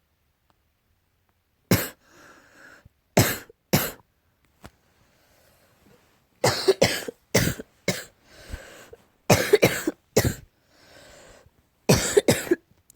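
Coughing tied to an allergy: about a dozen sharp, dry coughs beginning about two seconds in. They come singly and in quick pairs and threes, with faint breaths drawn between the fits.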